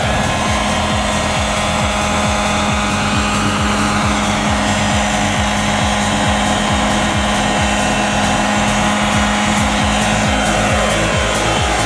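Henseleit radio-controlled model helicopter's engine and rotors running steadily in a low hover, a constant hum with a whine over it.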